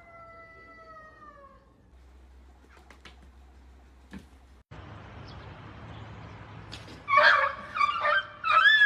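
Cat meowing: several loud meows close together near the end, each bending up and down in pitch, after a quieter stretch with a few faint clicks.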